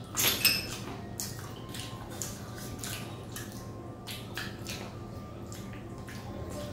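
Wet eating sounds of two people eating spicy curry with their hands: irregular chewing, sucking and lip-smacking. The loudest slurps come just after the start.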